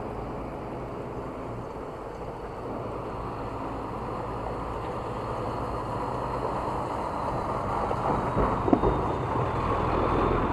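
Three heavy trucks passing on the road, a steady engine and tyre rumble growing gradually louder.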